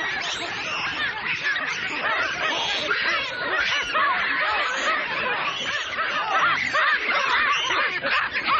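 A flock of many birds chattering: a dense, unbroken chorus of short, overlapping high chirps.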